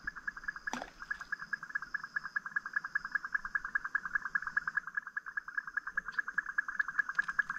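A frog calling: a steady, rapid trill of about ten even pulses a second that runs without a break, with a faint, high, steady whine above it.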